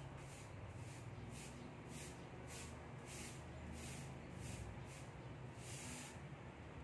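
Cat licking its paw while grooming: soft, quick rasping licks at about two to three a second, over a steady low hum.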